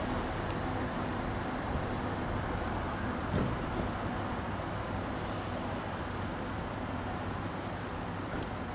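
Diesel passenger train running at the platform, a steady low hum and rumble, with a single short knock about three and a half seconds in.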